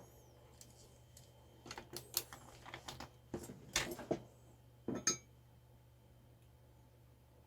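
A cluster of small, sharp clicks and clinks from about two to five seconds in, the last one ringing briefly: small tools and mechanical-keyboard switch parts being handled on the workbench.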